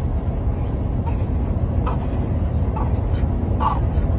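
Steady low road rumble inside a moving car's cabin, with a few brief faint sounds about a second apart.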